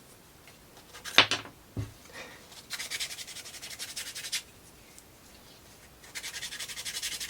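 Hand-sanding a small wooden model part: two bursts of quick back-and-forth rasping strokes, with a sharp knock about a second in.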